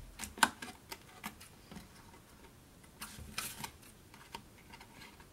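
Scissors snipping through cardstock: a series of sharp clicks as the blades close, the loudest about half a second in, with a quicker run of snips around three seconds in.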